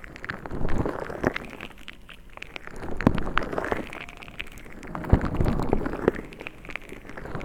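Close-up ASMR trigger sounds from hands working an object near the microphone: scattered sharp taps and clicks over swells of crackly rustling.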